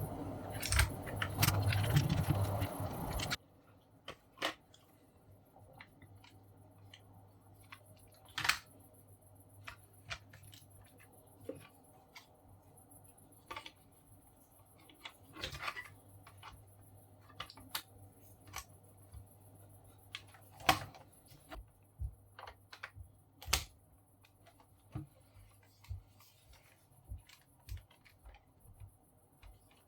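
Scattered light clicks and taps of small parts being handled. Before them, a few seconds of loud steady noise with a low hum stop abruptly about three seconds in.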